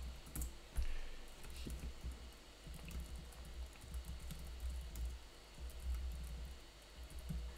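Faint typing on a computer keyboard: scattered key clicks over a low, steady rumble.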